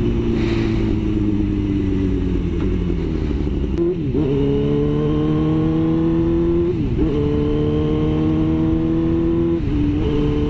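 Suzuki GSX-R sport bike engine under way. The engine note sinks for the first few seconds, then the bike pulls away, its pitch climbing steadily with a brief break for a gear change about four, seven and ten seconds in.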